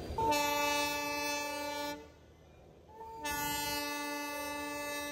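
The Darjeeling Himalayan Railway toy train's diesel locomotive sounding its horn twice, two long steady blasts, the second a little longer, as a warning while the train crosses a road.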